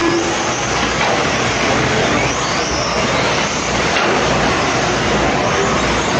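Electric 1/8-scale RC truggies racing on a dirt track: a steady wash of noise from motors and tyres on dirt, with faint rising and falling motor whines.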